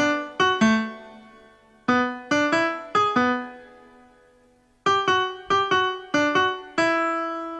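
Background music: a solo piano or electric-piano melody played in three short phrases of struck notes, each phrase left to ring and fade.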